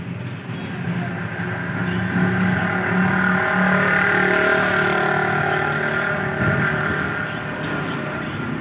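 A motor vehicle's engine passing on the road, growing louder to a peak partway through and then fading away.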